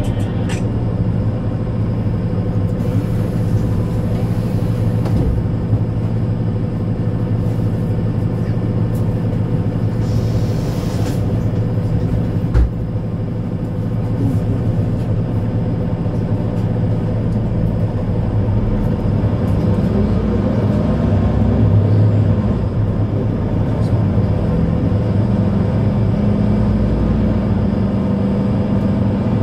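Mercedes-Benz Citaro C2 Ü Hybrid city bus driving, a steady low drone from its drivetrain. The note climbs in pitch and grows louder about twenty seconds in as the bus picks up speed. There is one short knock about twelve seconds in.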